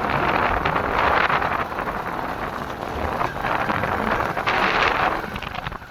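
A vehicle running on the move, with wind rushing over the microphone in two swells of noise.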